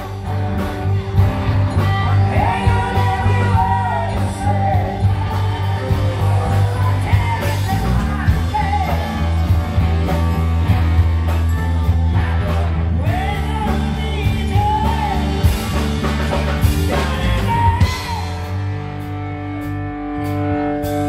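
Live rock band: a woman singing lead over electric guitar, bass guitar and drum kit. Near the end the vocal drops out and the band holds a sustained chord.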